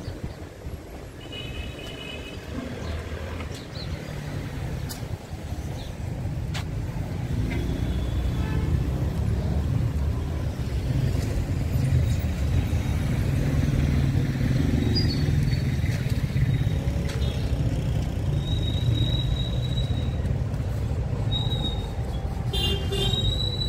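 Street traffic: a steady low rumble of passing vehicles that grows louder about seven seconds in, with a few brief thin high tones, most of them near the end.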